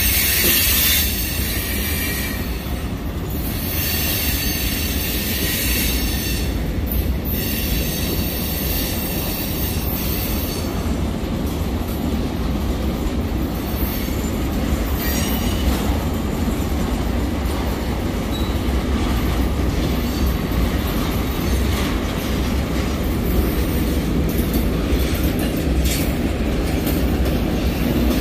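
Union Pacific freight train cars rolling past with a steady rumble of wheels on rail. The wheels squeal high in the first second or so.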